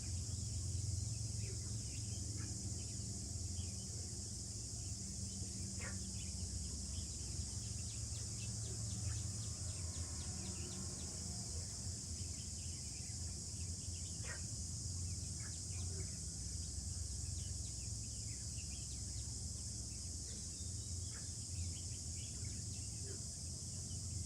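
Steady high-pitched insect chorus with a low rumble underneath and a few short bird chirps scattered through it.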